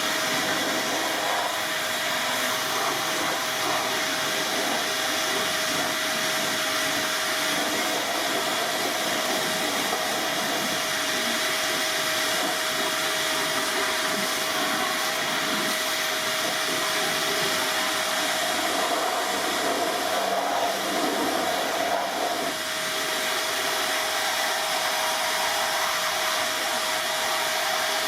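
A motor-driven air machine running steadily: a loud rush of air with a constant whine, a little rougher for a few seconds past the middle.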